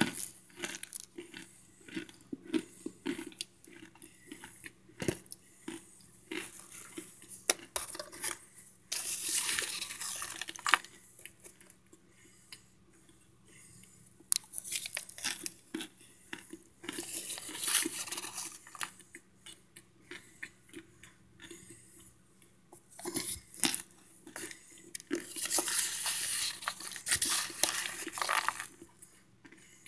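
Close-up chewing of microwaved cornstarch chunks: a run of sharp, crisp crunches broken by several longer stretches of dense grinding crunch.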